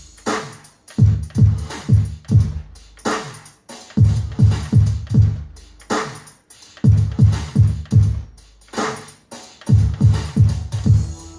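Electronic dance music with a drum machine beat of deep bass kicks and DJ scratch effects, played from a Sony sound unit. The beat comes in short phrases of four or five kicks that drop out briefly about every three seconds.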